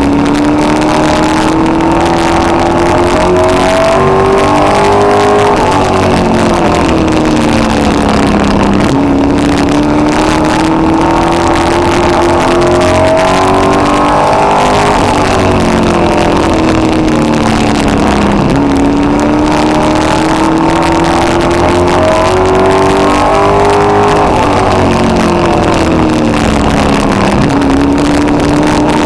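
Street stock race car's engine heard from inside the car at racing speed: its pitch climbs steadily along each straight and falls away into each turn, three times over.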